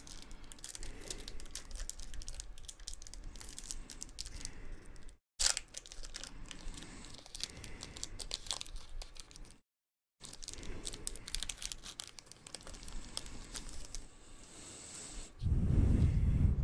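Foil Pokémon booster pack being torn open and crinkled in the hands, a run of small crackling tears and crinkles, with a louder low rustle near the end.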